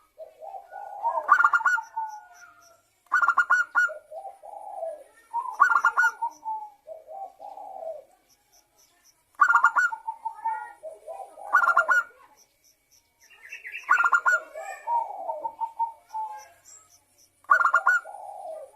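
Zebra dove (perkutut) singing its cooing song. About seven calls repeat every two to four seconds, each a quick stuttering run of notes followed by lower, rolling coos.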